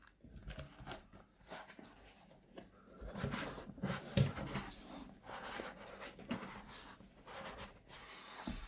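Kitchen knife sawing and scraping into a running shoe's rubber outsole and foam midsole, with the shoe being handled: irregular rasping strokes, busiest a few seconds in.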